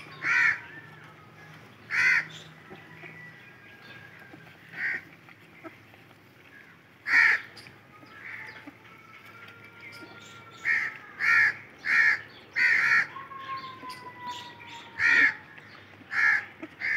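A crow cawing again and again: about a dozen short, harsh caws at irregular gaps, with a quick run of them past the middle.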